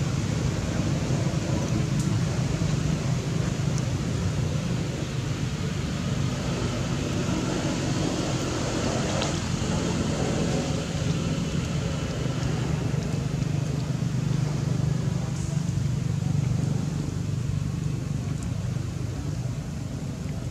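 Steady low engine-like rumble, as from a running motor vehicle, under a constant outdoor background hiss.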